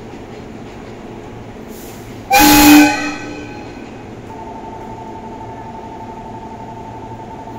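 211-series electric train sounding one short, loud horn blast while standing at the platform, the signal that it is about to depart. About two seconds later a steady two-pitch tone starts and holds.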